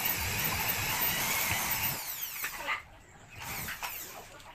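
Corded electric drill running at speed, boring into the flight case's plywood panel. About two seconds in the trigger is released and the motor whine falls as the drill winds down.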